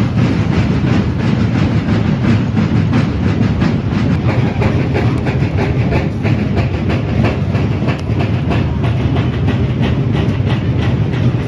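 Many snare and bass drums beating together in a dense, continuous rhythm, the massed drumming of the Nicolinas Pinheiro procession.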